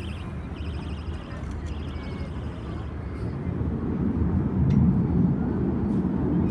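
Jet aircraft flying over, a deep rumble that swells louder about halfway through.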